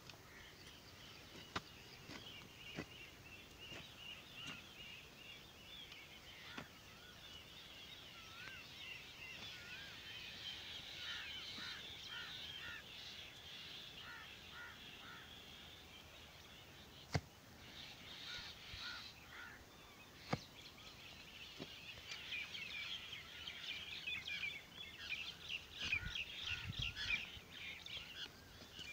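Birds chirping and twittering in a busy chorus. A few sharp clicks or knocks cut through it, the loudest two coming about two-thirds of the way through.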